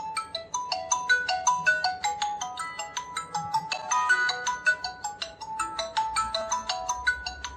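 A ringtone-style electronic melody of short, quick pitched notes, about five or six a second, running through a repeating phrase.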